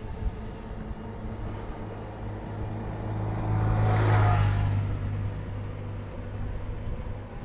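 A motor vehicle passing by, its sound swelling to a peak about four seconds in and then fading. Underneath is the steady wind and rolling noise of a bicycle being ridden.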